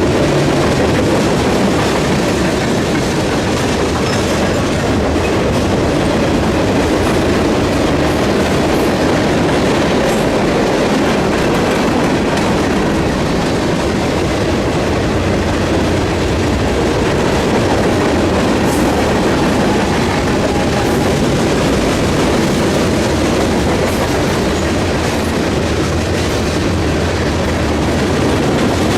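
Cars of a mixed freight train rolling past at steady speed, a continuous clatter of steel wheels on the rails.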